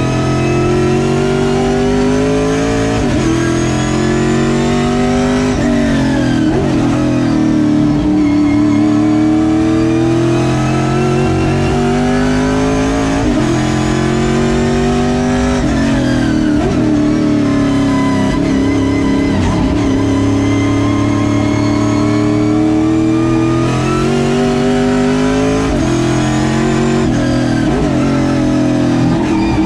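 Road-course stock car's engine, about 388 wheel horsepower, heard from inside the cockpit at racing speed. It revs up under full throttle, its pitch climbing, then falls away sharply several times, around 6, 13, 16 and 25 seconds in, between corners.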